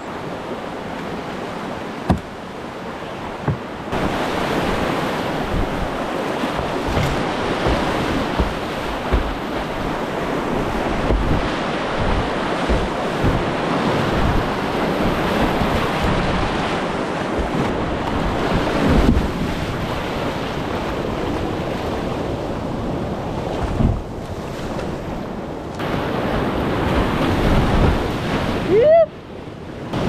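Whitewater river rushing and splashing around a kayak, with wind buffeting the helmet camera's microphone; the rushing gets louder about four seconds in as the boat reaches the rapids.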